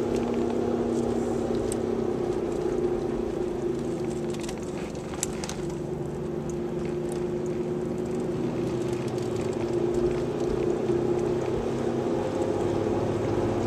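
1998 Chevrolet Malibu driving with a steady, pitched drone from two worn wheel bearings, mixed with road and engine noise; it dips a little in the middle and grows again toward the end.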